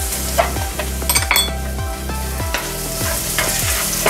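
Chopped onion and garlic sizzling in butter and olive oil in a nonstick frying pan, stirred with a wooden spatula that scrapes and taps the pan.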